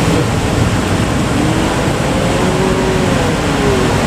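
Steady loud rushing roar of breaking surf and wind.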